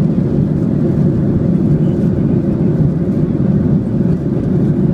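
Steady, loud cabin noise of an airliner in flight, the even low rush of engines and airflow heard from inside the cabin.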